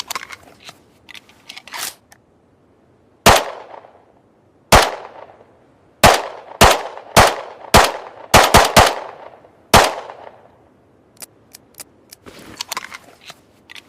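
Semi-automatic pistol gunshot sound effect: about ten sharp shots, some spaced a second or more apart and a quick string of three in the middle, each with a short ringing tail. Light mechanical clicks come before the shots and again near the end.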